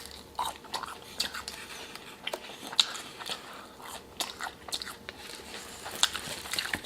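A person chewing and biting food with the mouth close to the microphone: irregular wet clicks and crunches.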